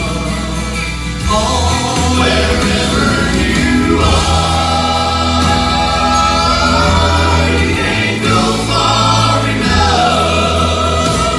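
Gospel vocal quartet singing in harmony with vibrato over instrumental backing with a steady bass line.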